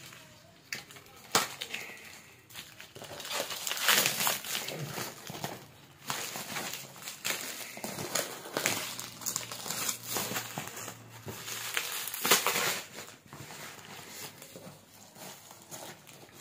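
Clear plastic stretch wrap crinkling and crackling in fits and starts as it is peeled off a cardboard parcel, with a few sharper snaps along the way.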